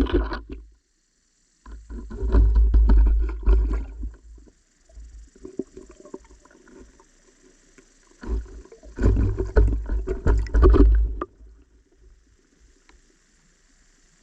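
Muffled rumbling and crackling knocks of water and movement against an underwater GoPro camera's waterproof housing. They come in two long spells, about two seconds and about eight seconds in, after a short burst at the start.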